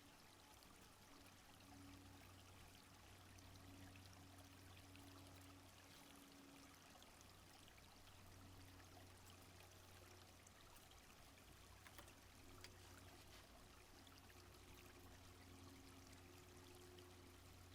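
Faint, steady flowing of a small stream, with a low hum underneath and a couple of small clicks about twelve seconds in.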